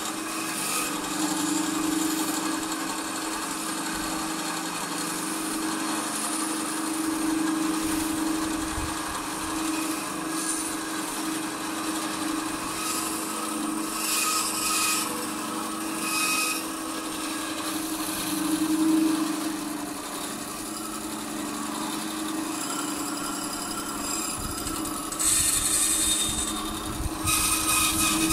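A power tool running steadily while cutting or sanding the roasted maple headstock of a guitar neck as it is shaped, with a few louder patches of noise a second or so long where the tool bites into the wood.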